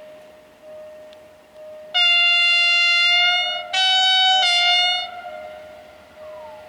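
Romanian GM-type diesel-electric locomotive sounding its horn: one long blast, then a second blast right after. A faint steady hum runs underneath.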